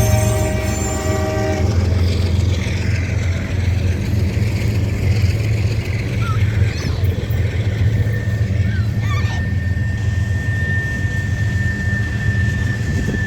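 Diesel freight locomotive's air horn sounding a chord, cutting off about a second and a half in, over the steady low rumble of the passing train. A thin, high, steady whine starts about two-thirds of the way through.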